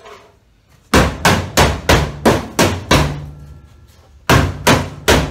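Hammer blows on the sheet-metal floor of a 1967 Chevelle, about three a second: seven strikes, a pause of about a second, then four more near the end.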